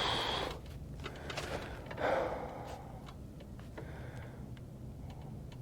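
Bolt-action rifle being worked for a dry fire: a short rasp of the bolt being cycled about two seconds in, followed by several light metallic clicks.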